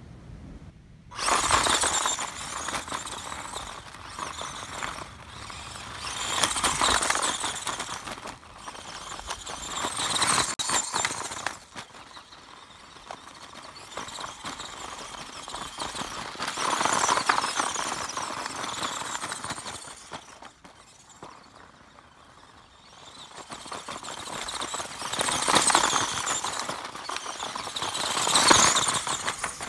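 A 1/18-scale electric RC truck driving over loose gravel: motor whirring and tyres crunching and scattering stones. The sound swells and fades several times as it accelerates and passes, starting suddenly about a second in and loudest near the end.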